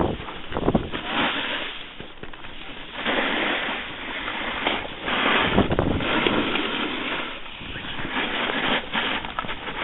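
The rushing hiss and scrape of skis or a snowboard sliding over packed snow, with wind buffeting the microphone. It swells and fades several times, a second or two at a time.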